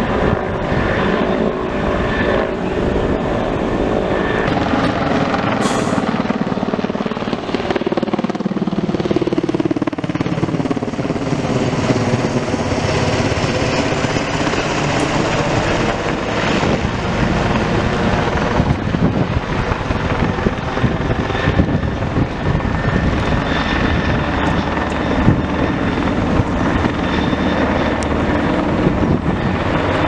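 Firefighting helicopter flying low overhead: a steady rotor beat and turbine whine, with the pitch sliding as it passes over about a quarter of the way in.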